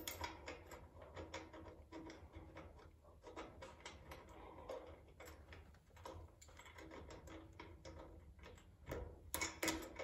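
Faint small clicks and light metal scrapes of fingers fitting a battery kill switch into its steel bracket and working its mounting hardware, with a short louder burst of clicks about nine seconds in.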